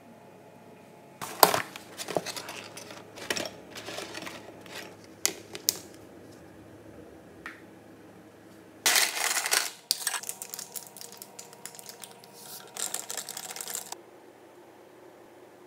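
Dishes and a plastic deli container being handled and set down on a countertop. A string of clicks and knocks comes first, then from about nine seconds in a longer spell of loud plastic crackling and rustling.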